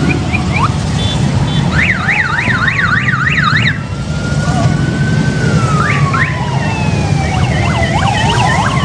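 Motorcycle engines rumbling as a line of bikes rides past, with sirens sounding over them. A fast yelp of about three cycles a second runs from about two seconds in, then several slow rising and falling wails overlap.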